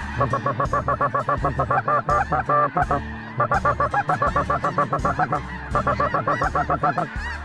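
Snow goose calling: rapid runs of short, high yelps, many a second, in three bursts with brief breaks about three and five and a half seconds in.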